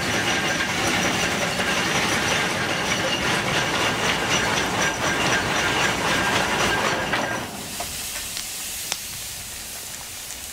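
Ruston Proctor steam excavator working, its steam engine and hoist running with a loud hiss and clatter and a faint whistle in the noise as the bucket is lifted. About seven and a half seconds in, it drops to a quieter hiss, with a single sharp click a little later.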